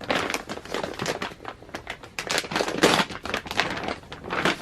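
Bag packaging being handled and opened, crinkling and rustling in quick irregular bursts.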